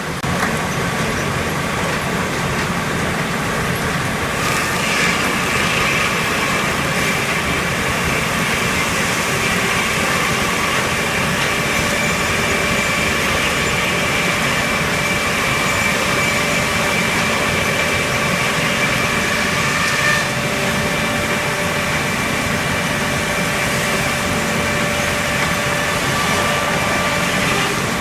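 Helle circle sawmill running: steady loud machinery noise with a high whine that comes in strongly about five seconds in.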